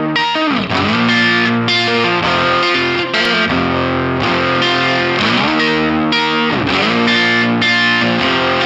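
Background music: loud rock with distorted electric guitar, the notes sliding down and back up twice.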